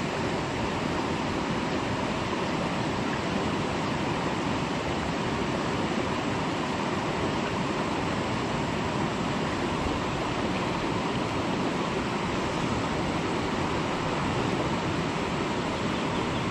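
River water rushing steadily, an even unbroken noise.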